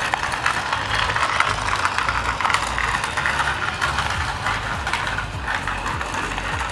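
Small battery-powered RC toy cement mixer truck driving over rough concrete: its electric gear motor whirs and its plastic gears and wheels give a steady rattly clicking.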